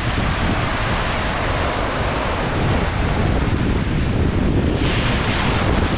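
Shallow ocean surf washing and breaking around the legs, with wind rumbling on the microphone. A louder rush of foaming water comes about five seconds in.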